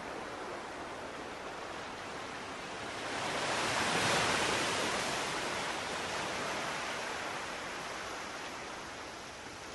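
Ocean surf: a steady wash of waves, with one wave swelling about three seconds in and slowly ebbing away.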